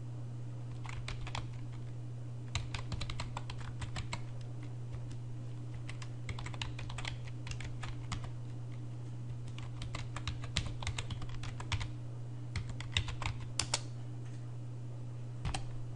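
Computer keyboard typing in short runs of keystrokes with pauses between them, over a steady low hum.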